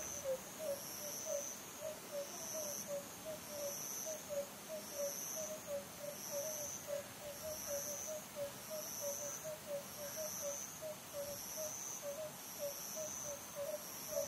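An owl hooting in a steady string of short notes, about two or three a second. An insect chirps in even pulses, a little over one a second, behind it.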